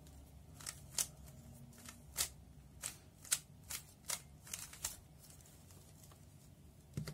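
A 3x3 Rubik's cube's layers being turned through a U-permutation algorithm: a run of about a dozen quick clacks over about five seconds, then the turning stops.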